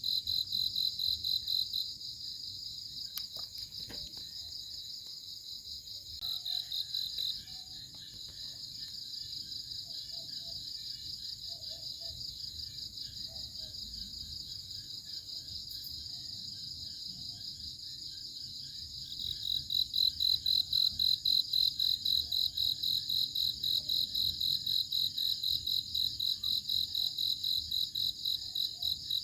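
Crickets chirping in a steady run of rapid high pulses, louder for the first couple of seconds and again from about two-thirds of the way through.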